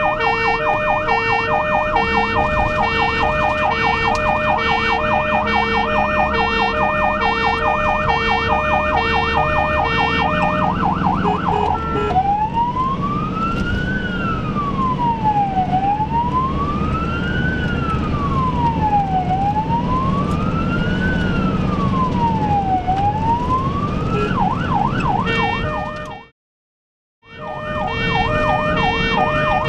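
Ambulance siren heard from inside the ambulance's cab: a fast yelp with a second pulsing tone under it, switching about twelve seconds in to a slow rising and falling wail, then back to the fast yelp near the end. Engine and road noise run underneath, and the sound cuts out completely for about a second shortly before the end.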